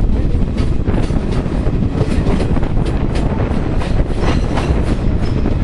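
Passenger train coach running along the track, heard from its open door: a steady loud rumble, with the wheels clicking over rail joints in quick, uneven runs of several clicks a second.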